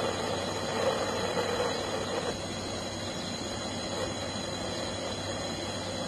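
Harris HTS99 hand torch burning MAPP gas with a steady hiss, its flame held on an aluminium tube joint being brazed. The hiss gets suddenly quieter about two seconds in.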